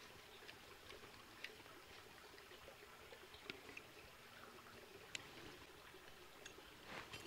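Near silence, broken by a few faint, scattered clicks of a screwdriver turning steel screws into the stock of a flintlock rifle.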